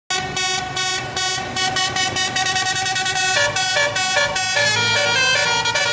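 Bus telolet horn, a Basuri multi-tone air horn, playing a tune: a run of short toots that gets quicker, then about halfway through changing notes held a little longer.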